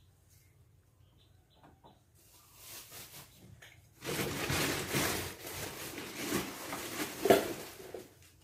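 Rustling with scattered knocks as a baby monkey clambers about and handles things on an old treadle sewing machine stand. The rustling gets louder about four seconds in, with the sharpest knock near the end.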